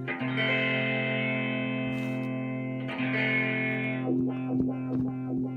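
Electric guitar played through a freshly repaired George Dennis GD55 overdrive wah-wah pedal: a sustained chord whose tone opens and closes twice as the wah treadle is rocked, then several short, choppy strikes near the end.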